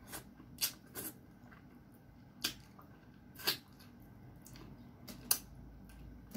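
Wet mouth sounds of eating: a handful of short, sharp smacks and sucks, about five in six seconds, as meat is sucked off a fish head held at the lips with the fingers.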